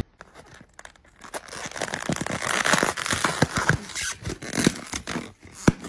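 Irregular crackling and crinkling noise made of many small clicks and rustles, sparse at first and denser from about a second in, with one sharp click near the end.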